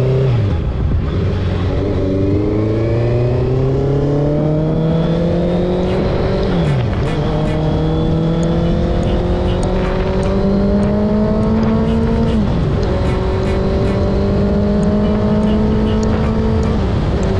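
Motorcycle engine accelerating steadily through the gears: its pitch climbs slowly, then drops sharply at each upshift, four times, over a steady rushing noise.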